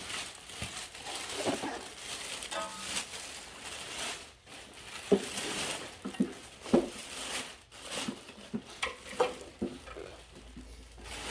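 Cardboard and plastic packing rustling and crinkling, with irregular knocks and thumps, as a pressure washer is unpacked from its box.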